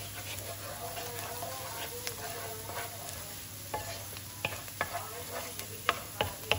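Diced onions and spices sizzling in a nonstick frying pan while a wooden spoon stirs them. In the second half the spoon scrapes and knocks against the pan several times, sharp taps that are the loudest sounds.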